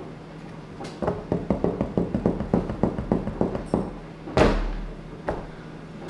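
Rapid tapping, about six taps a second for nearly three seconds, like fingers drumming on a kitchen countertop, then a single heavier thud a little over four seconds in, as of hands coming down on the counter. A faint steady low hum runs underneath.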